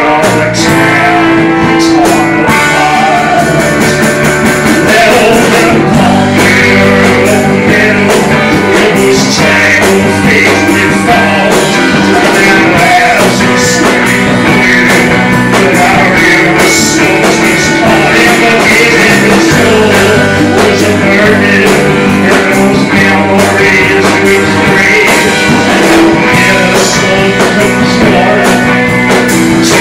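Live rock band playing at full volume: electric guitar and drum kit, with a man singing into a microphone.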